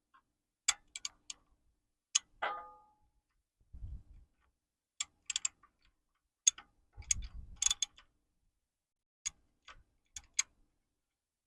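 Scattered sharp metallic clicks and clinks of a ratchet and crow's-foot wrench being worked on a power steering hose fitting, which is being tightened a short swing at a time. One clink rings briefly about two and a half seconds in, and there are two dull knocks.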